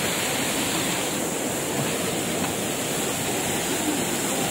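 A mountain waterfall's water rushing steadily.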